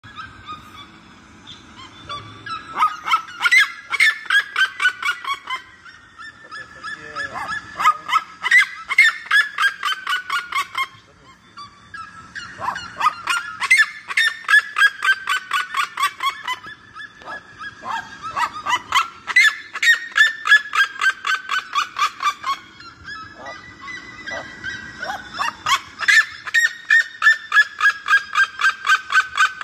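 Red-legged seriema singing: long series of loud, rapid yelping notes, about four a second, each series mostly falling in pitch, repeated five times with short pauses between.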